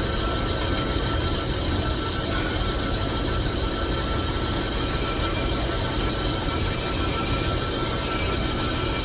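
Metal lathe running in a machine shop: a steady mechanical noise with a thin, steady whine held throughout.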